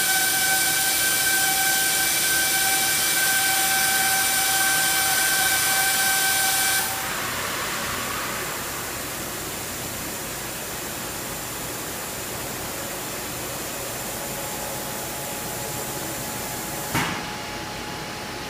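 CNC machining centre running: a steady high whine over a hiss stops about seven seconds in, leaving a softer hiss, and there is a single clunk near the end.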